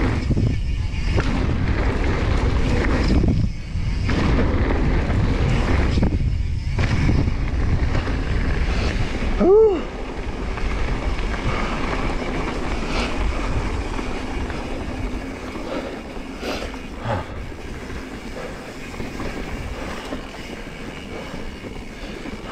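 Mountain bike descending a dirt flow trail: wind buffeting the action camera's microphone over the rumble of tyres on the packed gravel and the rattle of the bike. About ten seconds in, a short pitched sound rises and falls, the loudest moment, and the noise eases off toward the end.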